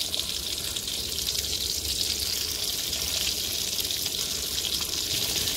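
Steady hiss of light rain (drizzle) falling.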